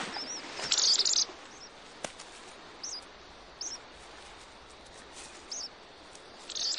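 Ancient murrelets calling: a rapid, buzzy trill about a second in and another near the end, with short high chirps scattered between, over a steady hiss.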